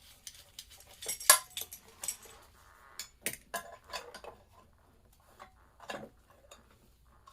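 Small metal engine parts clinking and knocking as they are handled, a string of irregular clicks with the loudest knock a little over a second in.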